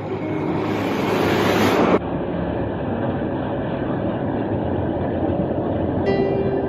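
Diesel locomotive drawing a passenger train into a station, its engine and wheels making a steady rumble that swells over the first two seconds. A steady held tone with a clear pitch comes in near the end.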